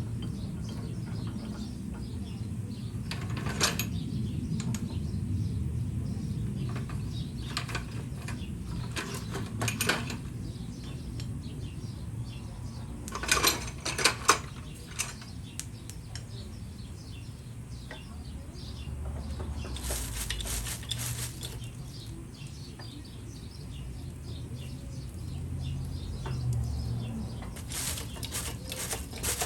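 Scattered metal clinks and knocks, the loudest cluster about halfway through, over a steady low hum. These are the sounds of tools and steel parts being handled.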